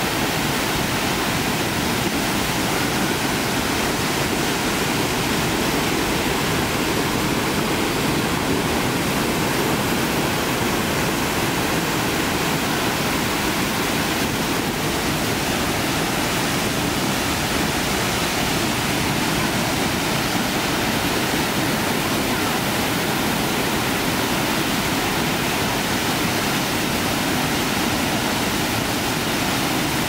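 Chagrin Falls in heavy, muddy high water: a loud, steady rush of water pouring over the ledge and crashing into the pool below, unchanging throughout.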